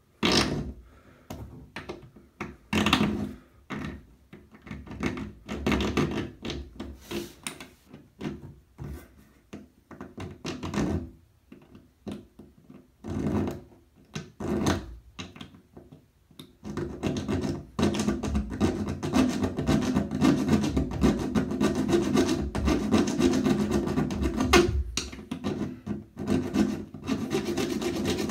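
A bare hacksaw blade sawing into the corroded metal crossbar of a bathtub drain strainer, cutting a notch for a screwdriver to bite into so the stuck drain can be turned out. The strokes come in short, broken spells at first, then run quick and steady without a pause from about two-thirds of the way in.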